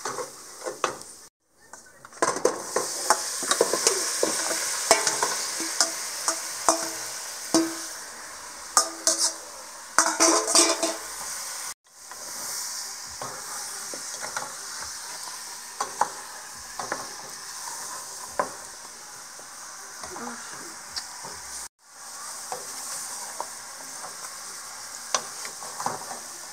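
Pig's feet being stirred with a wooden spoon in a metal pot of sizzling brown braising sauce. The sauce keeps up a steady sizzle while the spoon knocks and scrapes against the pot again and again. The sound cuts out briefly three times.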